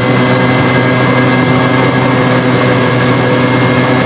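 Homemade turbocharger-based jet engine on a jet bike running steadily: a loud low hum with a thin high whine over it.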